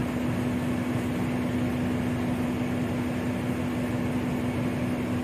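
Steady hum of machinery and ventilation in a steamship's engine control room, with one constant low tone over it.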